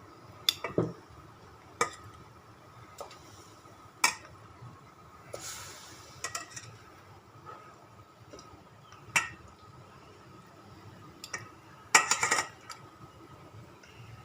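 A metal cooking utensil knocking and clinking against a pot: several separate sharp strikes spread out, then a quick rattle of clinks near the end. A brief hiss about five seconds in.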